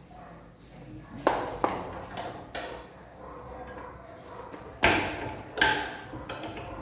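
About five sharp knocks and clatters of hard parts and tools, the two loudest past the middle, as a top-load washing machine's mechanism is being dismantled.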